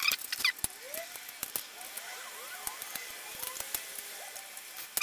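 Parts of a plastic model car kit being handled and pressed together, giving many small plastic clicks and taps with faint squeaks as the last piece is worked into place.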